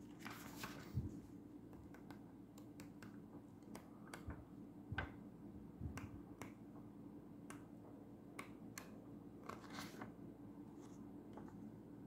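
Pages of an illustrated children's Bible being turned and handled: faint scattered paper rustles and small clicks, over a low steady hum.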